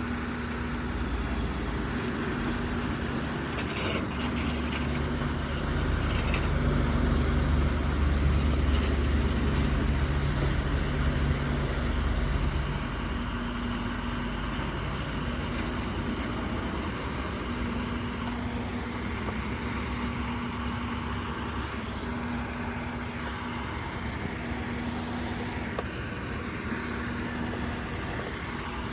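Engine and road noise heard from inside a moving vehicle's cab: a steady low rumble that grows louder from about six seconds in and eases off again around twelve seconds. A faint low tone pulses on and off evenly throughout.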